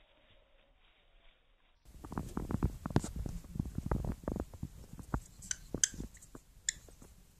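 Faint for about two seconds, then close, soft, irregular taps and rustles with a few short high squeaks in the middle, from a cockatiel nibbling and pecking at a cat's head.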